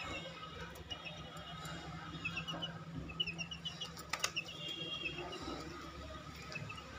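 Baby chicks peeping in short runs of small, high, rising chirps, with one longer, steadier peep about five seconds in. A steady low hum runs underneath, and a single sharp click comes about four seconds in.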